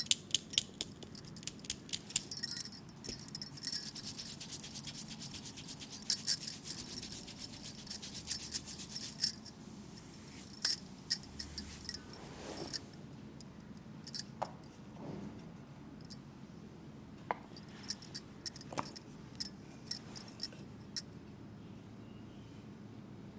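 Hands working hot oil into a leg: a dense run of quick, wet clicks and slaps for about the first ten seconds, then sparser clicks with a few smooth rubbing swishes.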